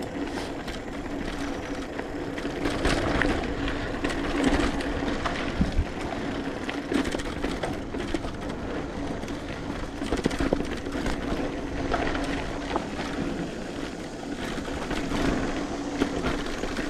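Mountain bike riding along a dirt trail: steady rolling noise with frequent short rattles and knocks as the bike goes over bumps, and a steady hum underneath.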